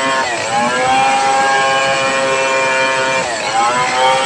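Homemade two-stroke chainsaw built like a Stihl 070, running at high speed while cutting through a hardwood log. Its pitch dips briefly and recovers twice, about three seconds apart.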